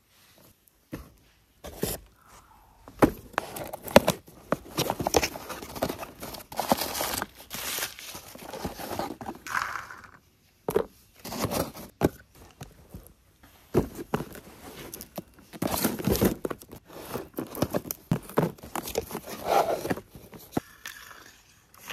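Crumpled newspaper packing rustling, crinkling and tearing as a toy tractor is unwrapped from a cardboard box, in irregular bursts with short pauses and scattered sharp clicks from handling.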